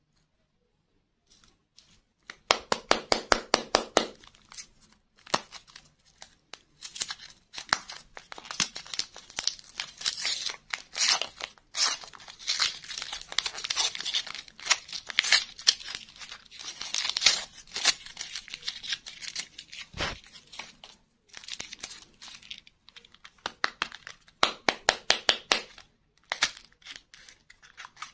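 Candy packaging of plastic wrap and thin cardboard being torn open and crinkled by hand, in many short crackling bursts that start about two seconds in.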